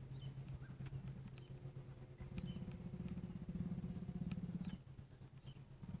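Game-drive vehicle's engine idling with a steady low hum. A louder low drone swells in from about two seconds to nearly five, and again at the very end. Faint bird chirps sound now and then.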